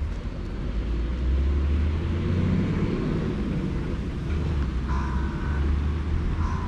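Wind rumbling on the microphone: a steady low rumble that dips briefly a couple of times.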